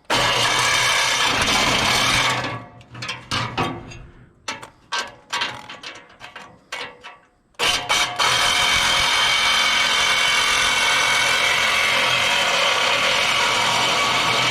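Handheld power tool cutting scrap metal: it runs steadily for about two seconds, then starts and stops in short bursts for about five seconds, then runs steadily again.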